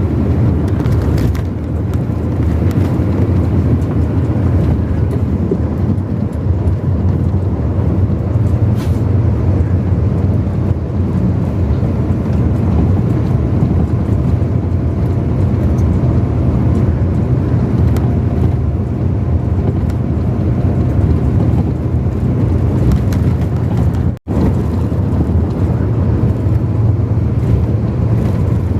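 Steady engine, tyre and wind noise of a road vehicle driving at speed, a low, even rumble. The sound cuts out for a split second about 24 seconds in.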